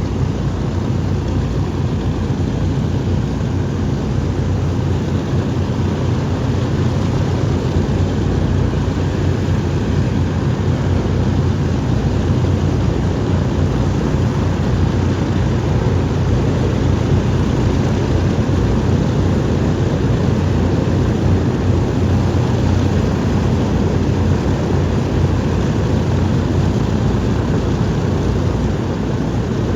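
Boeing B-29 Superfortress's four Wright R-3350 radial piston engines running steadily at low power, a loud, low propeller drone.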